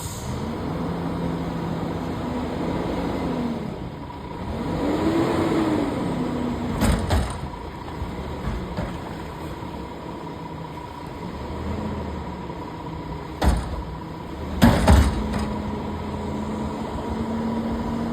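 Garbage truck's diesel engine running, revving up and down twice as it works its lift to empty a dumpster, with several sharp metal bangs, the loudest two close together near the end.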